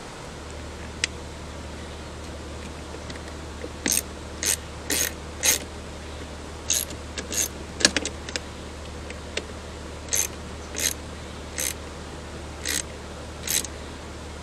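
Hand socket ratchet clicking in about a dozen short back-strokes, roughly one a second, as the fasteners of an underbody cover are done up.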